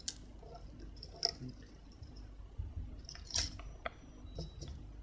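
Soldering iron tip working along the pins of a small surface-mount shift-register chip on a circuit board: a few faint, scattered clicks and light crackles, the loudest a little past the middle.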